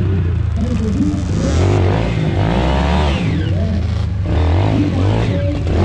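Enduro dirt bike engines revving, their pitch rising and falling again and again as the throttle is worked.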